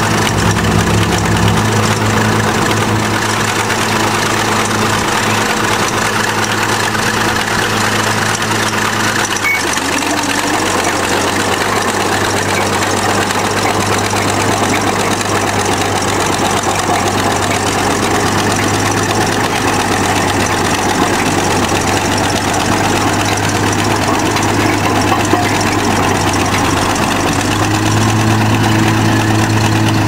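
Old crawler bulldozer's engine running steadily as the machine is driven. Its note shifts about ten seconds in and rises near the end.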